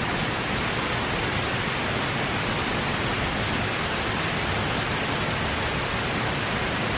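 Waterfall in full flow, swollen by snowmelt: a steady, even rush of falling water.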